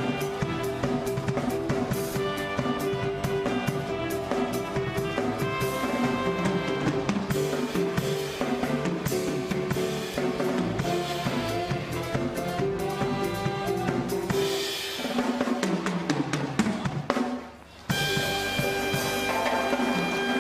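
Music with a drum kit beat and held instrument notes. It dips briefly about seventeen seconds in, then picks up again.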